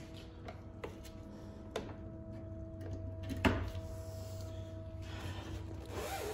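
A few light clicks and knocks of a power cord being handled and plugged into a power strip, the sharpest about three and a half seconds in, over a faint steady hum.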